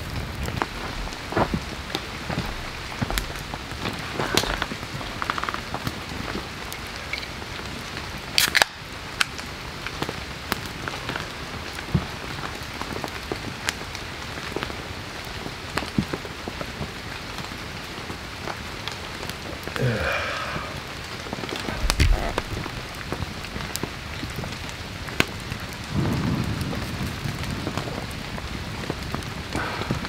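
Heavy rain falling steadily, with many scattered sharp clicks and taps and an occasional louder knock.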